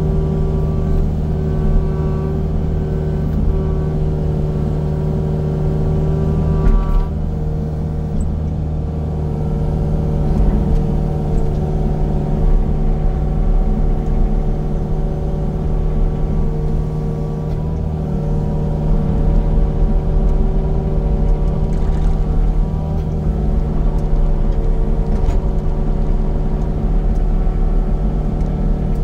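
Engine of a piece of heavy land-clearing equipment running steadily, with a low rumble; its note shifts about seven seconds in.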